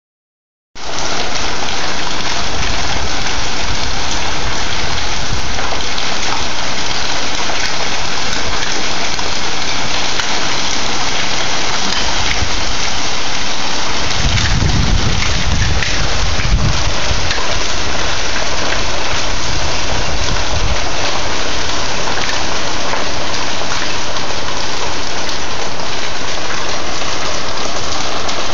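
Hail and heavy rain pelting a wooden deck, a steady dense patter with a low rumble about halfway through.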